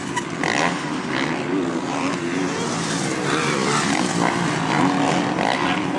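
Motocross bikes racing on the track, their engines buzzing and revving, the pitch rising and falling continuously as the riders work the throttle.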